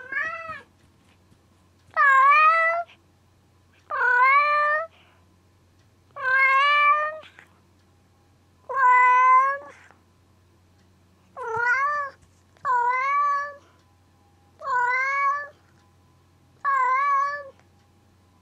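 Domestic cat meowing repeatedly: nine long meows, each under a second, about two seconds apart.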